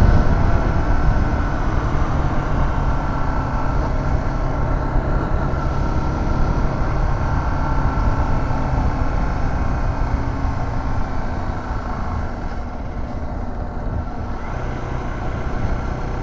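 Motorbike engine running at a steady speed while riding, with wind noise, easing off slightly a few seconds before the end.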